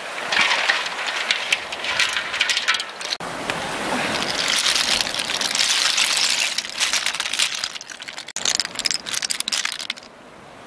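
Roasted snail shells clicking and clattering as they are scooped off a hot metal pan and handled in a woven basket, over a steady rushing noise.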